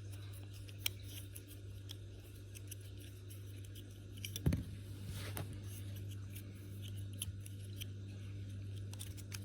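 Light, scattered clicks of a USB flash drive being flipped open and shut by hand like a butterfly knife, with one louder knock about four and a half seconds in, over a steady low hum.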